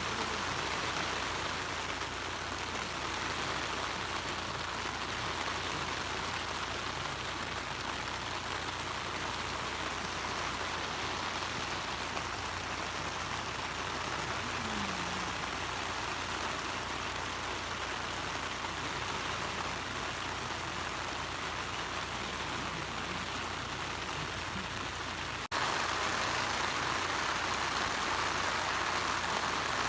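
Steady rushing outdoor noise with no distinct events. About 25 seconds in it cuts abruptly to a slightly louder stretch of the same noise.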